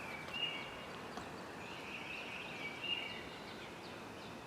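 Faint birdsong: short, high chirps and whistles repeating over quiet outdoor background noise.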